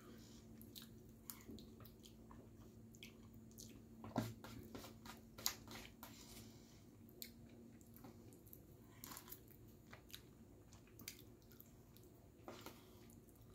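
Quiet chewing and mouth sounds of someone eating spaghetti bolognese, with scattered small clicks from a metal fork and a faint steady hum underneath. The loudest clicks come about four and five and a half seconds in.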